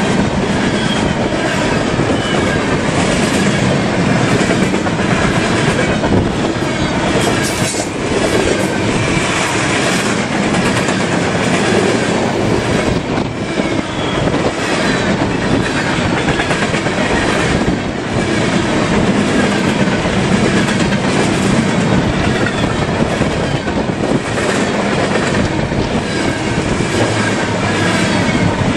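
Freight train cars rolling past close by: steady clatter of steel wheels on the rails, with short faint high-pitched flange squeals now and then.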